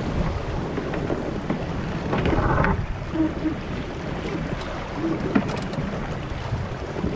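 Steady rush of wind and water aboard an Impulse 26 sailboat under way, with a louder surge of noise about two seconds in and a sharp knock a little past five seconds.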